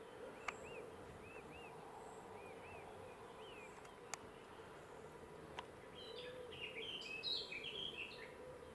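Small birds calling over a faint outdoor ambience: short rising-and-falling chirps, several in pairs, in the first few seconds, then a louder burst of busy twittering near the end. A few sharp clicks come along the way.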